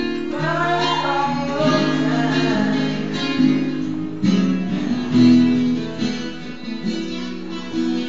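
Music with guitar playing, in held notes that change every second or so.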